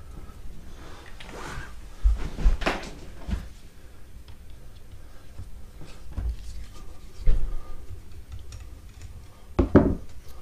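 Scattered clicks, knocks and brief scrapes of hands and a small tool working on a mobility scooter's electric brake unit, with a firmer knock near the end.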